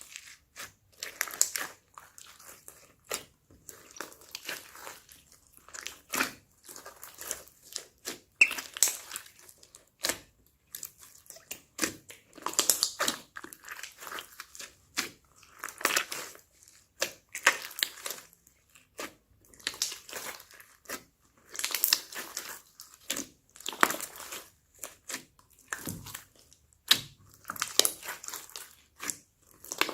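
Slime being pressed, stretched and mixed by hand: irregular sticky squishing with sharp little clicks and crackles, several a second.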